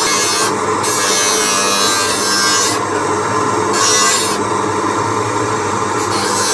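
Continuous rasping and rubbing of a hand tool being worked against a part, like filing or sanding.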